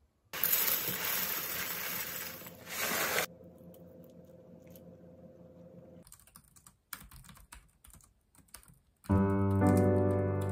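A loud rushing noise for about three seconds, then a quiet stretch, then a quick run of clicks from typing on a computer keyboard; background music with piano-like notes comes in near the end.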